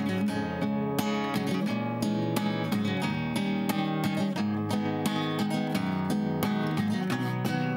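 Acoustic guitar strummed steadily, with no voice: the instrumental closing bars of a sung bard song.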